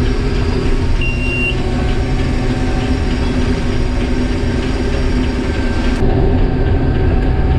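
Combine harvester running steadily under heavy load while threshing soybeans, heard from inside the cab. About a second in comes one short, high beep, like the cab warning that sounds when the rotor is pulled down too far by the throughput.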